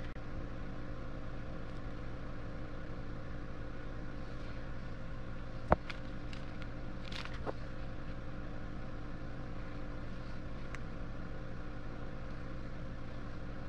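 Steady machine hum with several fixed tones, running evenly throughout, with one sharp click about six seconds in and a few faint ticks after it.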